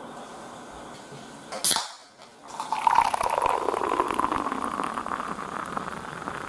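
A beer can's tab cracked open with a short sharp hiss, then beer poured from the can into a glass: a steady splashing, gurgling pour that begins about a second later and keeps going.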